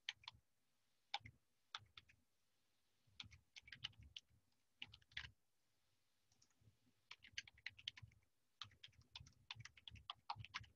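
Faint typing on a computer keyboard: quick runs of keystrokes with a pause of about a second and a half midway.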